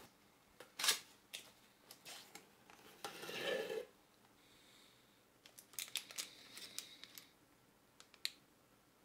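Cardboard shipping box being handled and opened, then plastic LEGO minifigure blind bags rustling as they are picked up. The sound is a quiet scatter of light clicks and rustles, with a sharp snap about a second in, a longer rustle a little past halfway through the first half, and a run of small crinkling clicks later on.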